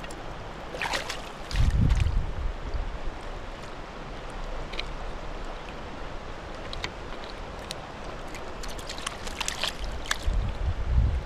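Creek water running steadily. Wind buffets the microphone in low rumbles about two seconds in and again near the end, with a few light clicks and rustles.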